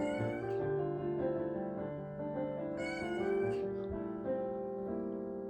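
Munchkin cat meowing twice, a drawn-out "naan", the calls about three seconds apart, over background piano music.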